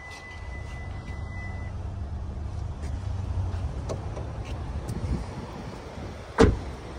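The rear door of a 2022 Hyundai Elantra is shut with a single loud thump about six and a half seconds in. Before it there is a low rumble, with a faint steady high tone at the start.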